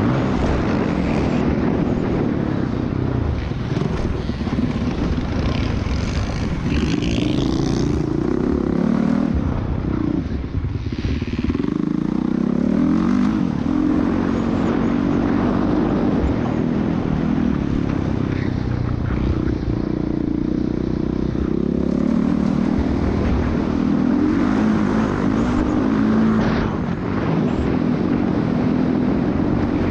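Motocross dirt bike engine heard from on the bike, revving up hard and dropping off again and again as the rider accelerates and backs off around the track.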